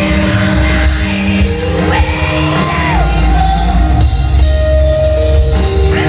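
Live rock band playing loud, with drums, guitar and vocals singing over the top, recorded from the crowd in a large hall.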